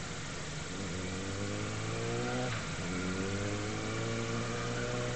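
Motorcycle engine accelerating: its pitch rises, drops at a gear change about two and a half seconds in, then rises again and levels off.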